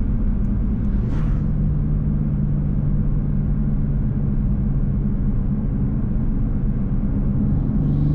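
Turbocharged straight-six of a 2019 MK5 Toyota Supra, fitted with an aftermarket downpipe and a stock rear silencer, droning steadily under way with road rumble. Its pitch settles slightly higher about a second in and steps up again near the end.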